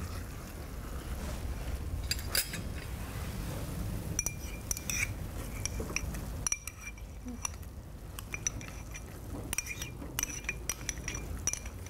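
A spoon clinking and scraping against a small bowl and the rim of a stainless steel pot as fruit pulp is spooned into risotto. Irregular light clinks with a brief metallic ring, most of them in the second half, over a low steady hum.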